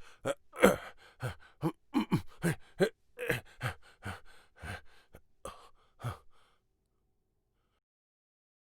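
Male fight vocalisations: a quick run of about a dozen short grunts, gasps and exertion noises, as from someone taking and throwing blows. They stop about six seconds in.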